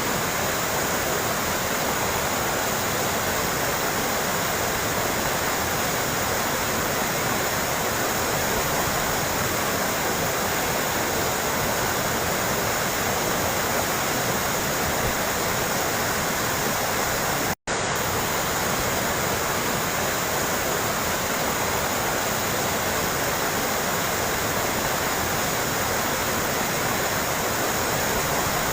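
Steady trickling water, a continuous even rush. It cuts out for an instant about two-thirds of the way through, then carries on unchanged.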